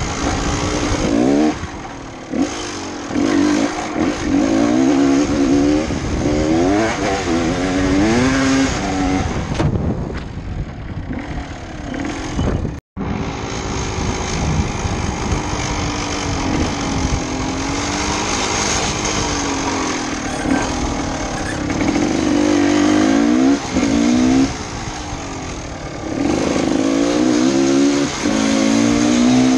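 GasGas 250 EC enduro motorcycle engine revving up and falling back again and again as the rider accelerates and shifts. It eases off around ten seconds in, and the sound cuts out for a split second at an edit about thirteen seconds in.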